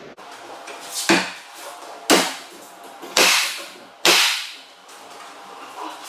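Pneumatic finish nailer firing four times, about a second apart, each shot a sharp crack with a short hiss of air after it, driving nails through the shimmed hinge-side door jamb.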